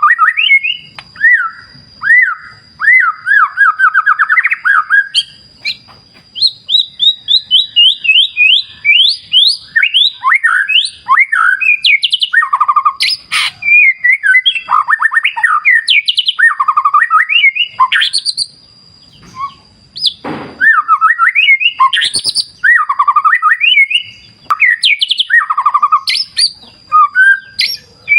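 White-rumped shama (murai batu) singing loudly and continuously: varied whistled phrases, fast rattling trills and rising and falling sweeps, with short pauses, over a faint steady high tone.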